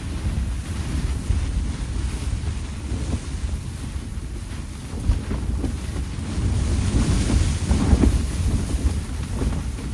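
Blizzard wind gusting and buffeting the microphone with a deep, uneven rumble, swelling into a stronger gust about seven seconds in.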